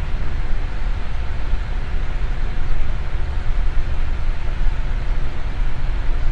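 Electric fan running steadily: a constant even whoosh with a strong low rumble and a faint steady motor hum.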